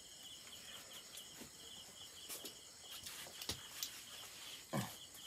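Crickets chirping steadily in rapid, pulsing high-pitched trains, with a few soft clicks and one louder knock near the end.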